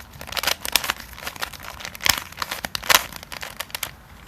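Fisher cube being turned by hand through a 3x3 algorithm: a quick, uneven run of plastic clicks and rattles as its layers rotate, with two louder snaps about two and three seconds in.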